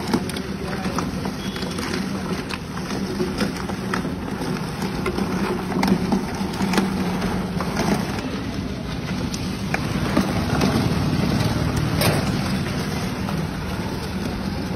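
Steady street traffic noise: a constant low rumble and hum with scattered small clicks and knocks.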